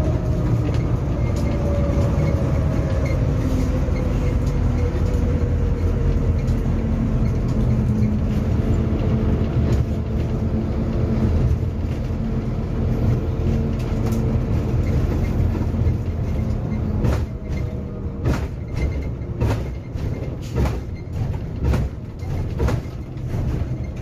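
Bus engine and road noise heard inside the driver's cab: a steady low drone whose pitch falls slowly over the first several seconds as the bus slows. In the last seven seconds or so, a run of sharp, irregular thumps and knocks sounds over it.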